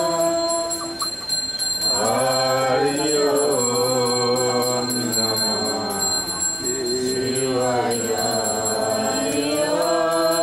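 Voices singing a devotional chant in long, slowly gliding held notes, phrase after phrase, over a bell ringing continuously.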